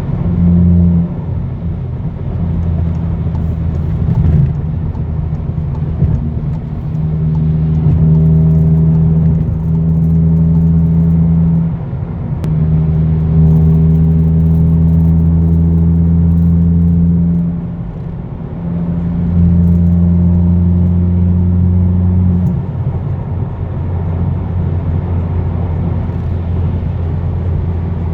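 Volkswagen MK7 GTI's turbocharged 2.0-litre four-cylinder running through a custom cat-back exhaust at highway cruising speed, giving a steady low drone. The drone swells louder for stretches of several seconds and eases back a few times, with brief dips about twelve and eighteen seconds in.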